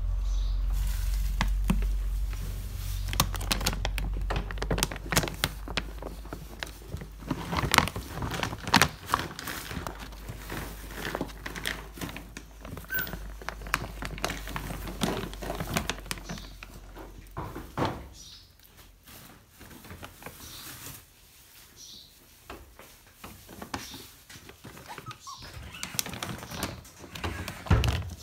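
A puppy rummaging with its head inside a plastic bag of dry dog kibble: dense crinkling of the bag and crunching of kibble, a run of short irregular clicks and crackles. A low rumble runs underneath and stops about eighteen seconds in.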